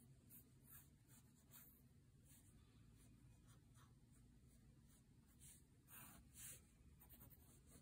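Faint scratching strokes of an ultra-fine Sharpie marker drawing on sketch paper, in short irregular strokes, a few slightly louder about six seconds in.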